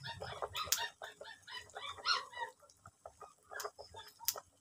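Animal calls, a quick run of short repeated calls that die away a little over halfway through, followed by a couple of sharp clicks near the end.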